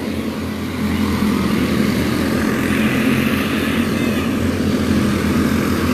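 Quarter midget race cars' small single-cylinder engines running as the field laps the track, growing a little louder about a second in.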